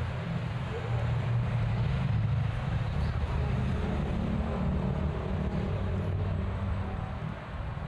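Busy road traffic passing close by: vehicle engines running steadily with tyre noise on the road.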